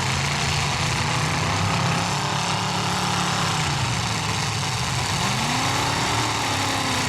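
Pickup truck engines revving and running in a demolition derby, their pitch climbing and dropping a couple of times over a steady engine noise.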